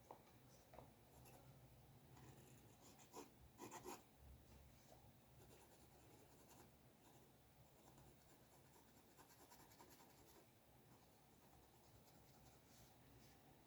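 Faint scratching of a drawing tool stroking across paper, with a louder flurry of strokes about three to four seconds in.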